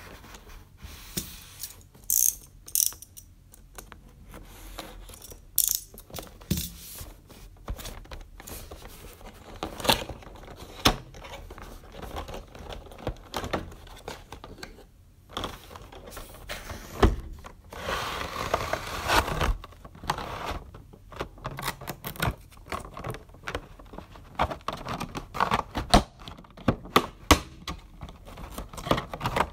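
Close-up unboxing sounds: a cardboard retail box and its cardboard insert handled, then a clear plastic clamshell tray, with many irregular small taps, clicks and scrapes. About two-thirds of the way through comes a longer stretch of sliding and rubbing.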